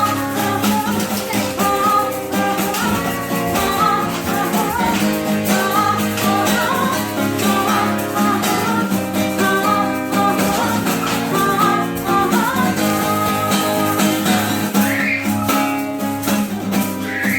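Live acoustic music: a guitar playing, with a singing voice over it.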